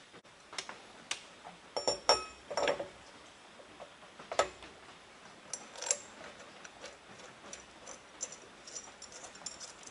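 Light metallic clinks and clicks as a polished aluminium cogged blower pulley and its hardware are handled and fitted onto a 6-71 supercharger's drive hub. There is a cluster of sharper ringing clinks about two seconds in and single ones near four and six seconds, with lighter ticks after that.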